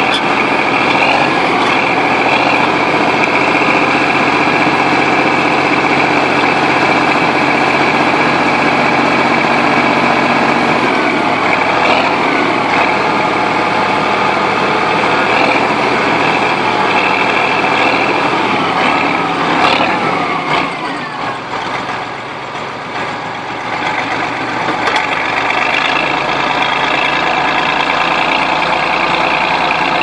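Chetra T11 crawler bulldozer's diesel engine running hard. About two-thirds of the way through, the engine note drops and goes quieter for a few seconds, then picks back up.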